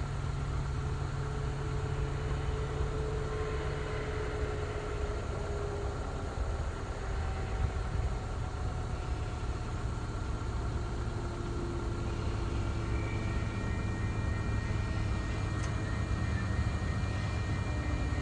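Low, steady rumble of TasRail locomotive TR03's diesel engine approaching in the distance. About two-thirds of the way through, the level crossing's warning bell starts up with a steady high ringing.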